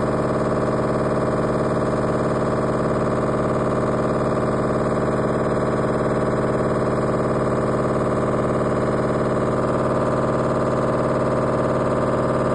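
LG front-load washing machine in its spin cycle, running at a steady speed with a loud, even hum made of several pitched tones. This is the heavy spin sound the machine makes.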